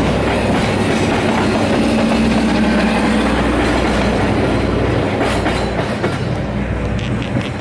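Long passenger train's coaches rolling past, wheels clattering on the rails. The last car goes by about five seconds in, and the sound eases slightly near the end.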